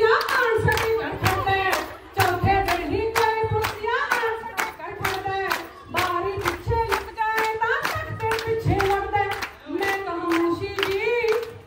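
A group of women singing Punjabi boliyan, with steady rhythmic hand-clapping keeping the beat for giddha.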